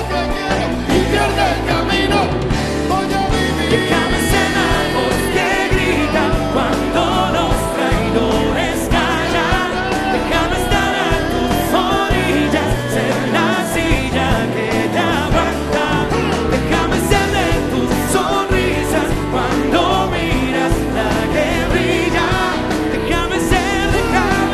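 Live band playing, with male voices singing into microphones over it.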